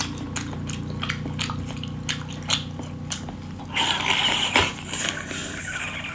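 Close-miked chewing and biting of cuttlefish: a run of sharp, wet mouth clicks and smacks, growing denser and noisier for a moment about four seconds in.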